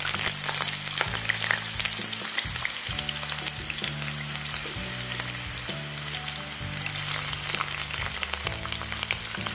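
Potato wedges frying in hot cooking oil in a pan: a steady sizzle full of fine crackles.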